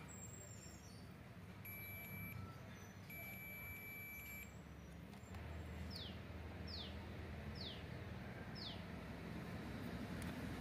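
Quiet low hum, with two short steady high beeps in the first half and then four short falling chirps about a second apart.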